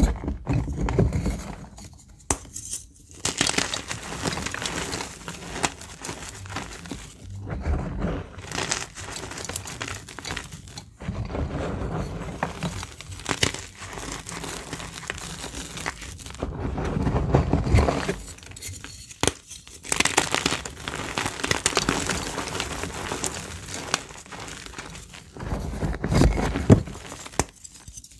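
Purple reformed gym chalk bars being crushed and crumbled by hand: irregular crunching and powdery crumbling, with a few short pauses between squeezes.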